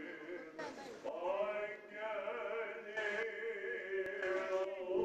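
Greek Orthodox Easter chant sung by male voices, in long, slowly moving held notes.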